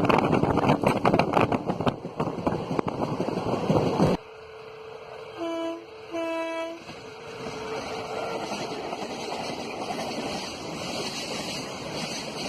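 Loud rumble and clatter of a passing train that cuts off abruptly, then an Indian electric locomotive's horn sounds twice, a short blast then a slightly longer one, over a quieter steady rumble.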